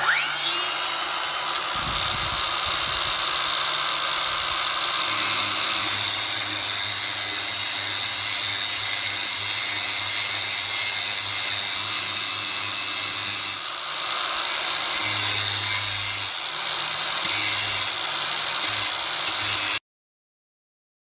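Angle grinder spinning up with a rising whine, then grinding the metal plate of an RC wheelie bar in one continuous loud stretch. It shaves off a little material so the bar clears the transmission mount. The sound stops abruptly about a second before the end.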